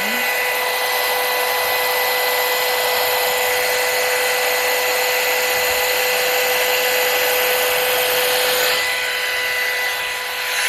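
Pro Hot hot-air brush hair dryer running steadily: a small fan motor's whine over a rush of blown air. The air noise eases a little near the end.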